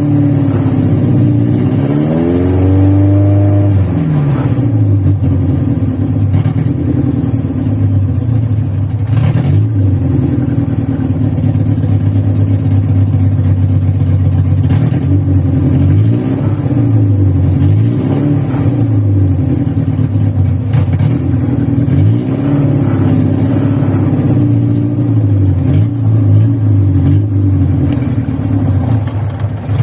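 Carbureted VW Voyage engine warming up after a cold start, running rough with worn old mechanical parts. The engine speed rises and falls unevenly again and again as the pedal is pumped, with one bigger rev about two to four seconds in.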